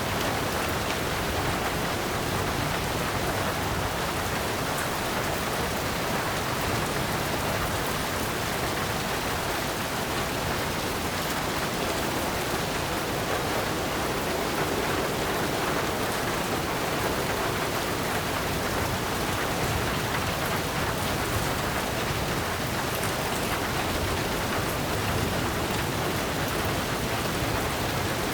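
Heavy rain falling steadily on a tin roof: a dense, even hiss with a few faint sharp drop ticks.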